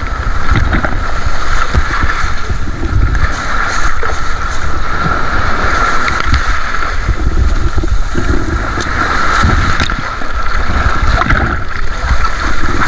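Shallow seawater sloshing and splashing close to the microphone as a hand moves through it over a pebbly bottom. A heavy low rumble runs underneath.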